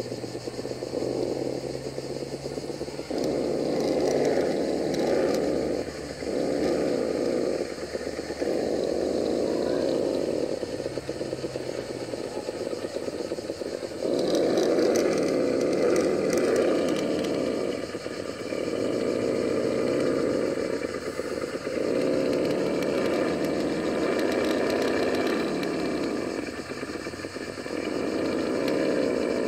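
Vaterra Ascender RC rock crawler's electric motor and drivetrain whining in stop-start bursts of throttle of a few seconds each as it crawls over a boulder.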